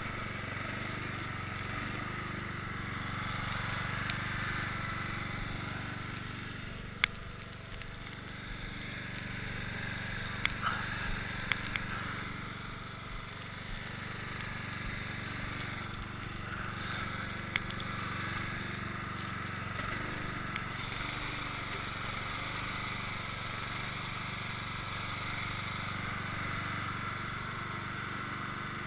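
Cub Cadet XT1 lawn tractor's engine running steadily while its front blade pushes heavy snow, with a few sharp clicks about seven seconds in, a small cluster around ten to twelve seconds, and one more near seventeen seconds.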